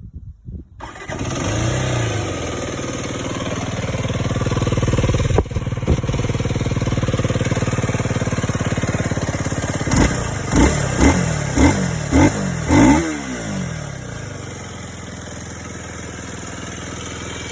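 Aprilia SX 125 Euro5's single-cylinder four-stroke engine through its stock exhaust: it starts about a second in and idles, then is revved in six quick throttle blips before settling back to idle.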